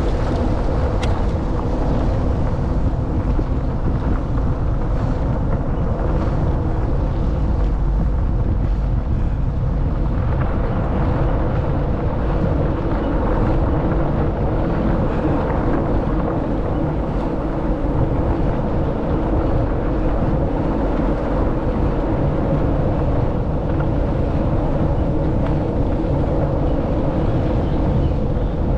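Wind buffeting the microphone of a camera on a moving bicycle, over the steady rumble of tyres rolling on a gravel road.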